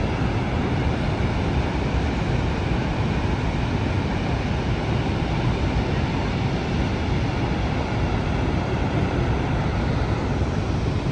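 Niagara Falls: a loud, steady rush of heavy water going over the brink, deep and rumbling, with no change in level.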